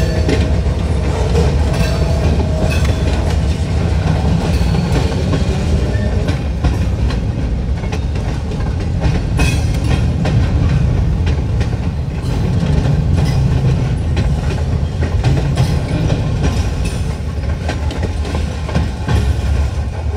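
A train rolling past close by: a steady low rumble, with wheels clicking over the rail joints.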